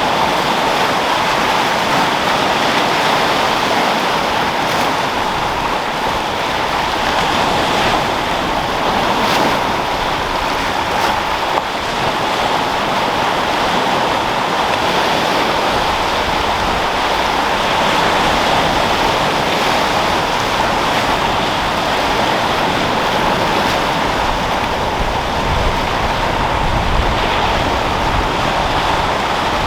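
Sea surf washing onto the shore in a steady, continuous rush, with wind; a low wind rumble rises in the last few seconds.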